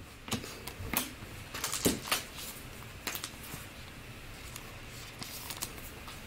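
Glossy chromium Topps Finest baseball cards handled and flipped through by hand: short clicks and slides of card against card, busiest in the first two seconds, then only faint ticks.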